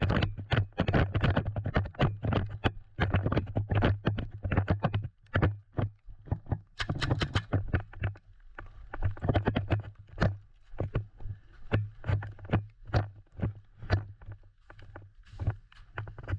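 Footsteps walking at a steady pace, about two to three steps a second, over a low steady rumble, briefly quieter about five seconds in.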